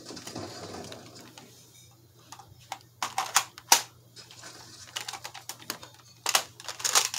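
Irregular sharp clicks and clattering knocks of a Nerf shotgun shell and blaster being handled and loaded, with a soft rustle at the start and two louder clusters of clicks, about three and about six and a half seconds in.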